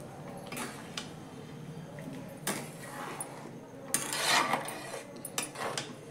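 Metal spatula stirring and scraping thick sevaiyan (vermicelli in milk) in a metal kadhai, in a few irregular strokes with the odd clink against the pan, the loudest about four seconds in.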